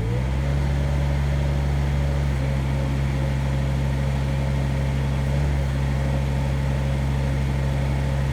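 Small excavator's diesel engine rising in pitch over the first half second, then running steadily at high revs, driving a hydraulic post-hole auger at high speed.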